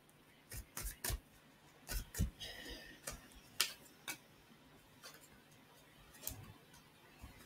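A deck of tarot cards being shuffled and handled by hand: faint, irregular clicks and taps of the cards, with a brief rustle of cards sliding together about two and a half seconds in.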